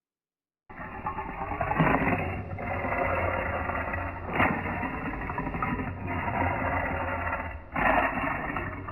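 Layered creature growl sound effect for the Beast, mixed from lion, tiger and King Kong roars. A continuous rumbling growl starts just under a second in and swells into louder roars three times.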